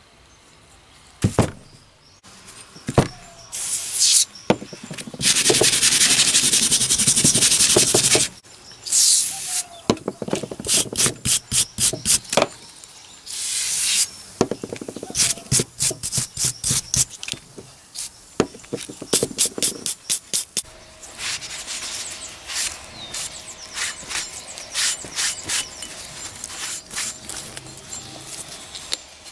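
A hand brush scrubbing a rusty steel hatchet head in quick back-and-forth strokes, several a second, with a steady hiss lasting about three seconds about five seconds in. In the last third the strokes turn softer as the head is rubbed with a cloth.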